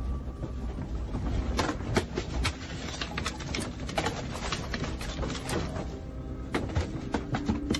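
Irregular, rapid rattling and knocking of desk equipment and a monitor arm, over a steady low rumble.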